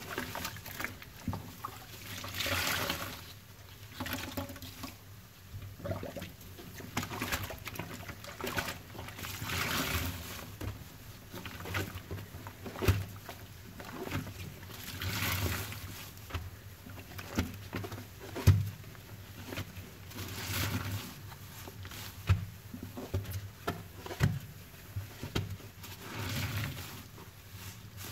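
Soapy sponges scrubbed and squeezed against a stainless steel sink: wet squishing and swishing water, swelling every few seconds, with scattered small clicks and a few sharper knocks.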